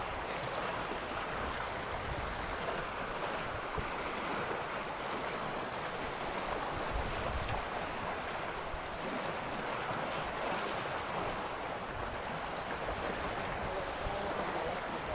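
Steady rushing of a flood-swollen river's fast current.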